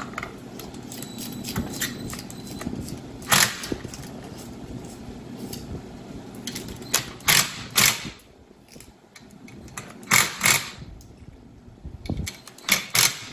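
Metal hand tools, a wrench and a ratchet with an extension, clanking against a snowmobile engine while bolts are fitted: a series of sharp metallic clanks in small clusters. A low steady hum runs under the first half.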